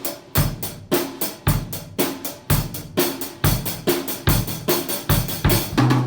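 Drum kit played in a steady beat, bass drum, snare and cymbal strokes at about three to four a second.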